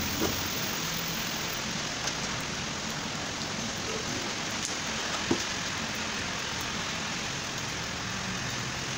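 Steady, even hiss of background noise, with a few light clicks and one sharper knock about five seconds in from washing-machine parts and fittings being handled during reassembly.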